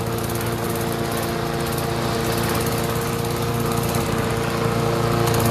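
Small gas engine of a homemade lawnmower–mini bike build running steadily under way, gradually growing louder.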